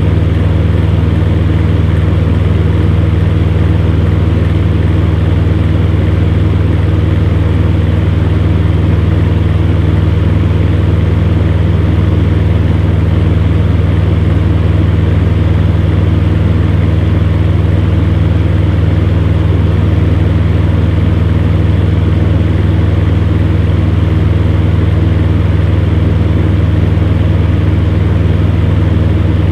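Electric fan running steadily: a loud, even hum with a constant low drone and airy rushing noise above it.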